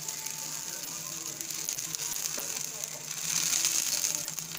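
Coconut-stuffed paratha dough laid into a hot, dry frying pan, giving a steady light sizzling hiss that grows a little louder about three seconds in.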